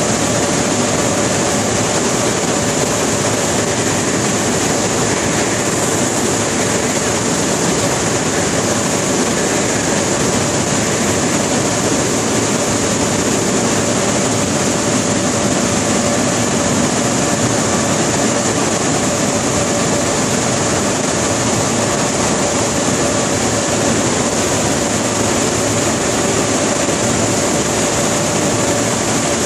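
Automatic tunnel car wash running: tall spinning cloth brushes slap and scrub over a minivan while water sprays hiss steadily, over a steady machine hum.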